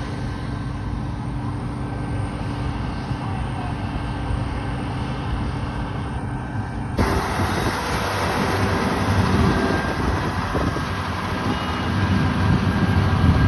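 Engine of harvest machinery running steadily with a low drone. About seven seconds in, the sound changes abruptly and becomes louder and rougher.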